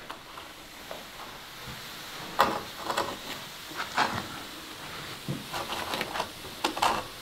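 A long plasterer's straightedge being drawn over a freshly plastered wall to level the wet plaster, a soft scraping with a few short scrapes and knocks.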